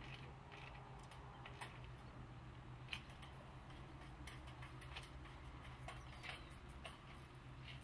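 Faint, irregular clicks and taps, about six in all, from workers handling solar panels and their mounting hardware on metal rails, over a low steady hum.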